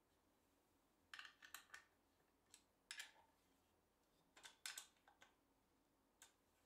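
Faint clicks and light knocks of plywood parts being handled as a homemade lathe's tool rest is set in place and slid along its slotted base. They come in a few short clusters, with one last click near the end.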